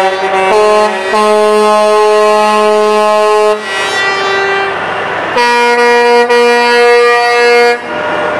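Loud horns blaring in long held notes, several tones at once, with the pitch changing several times.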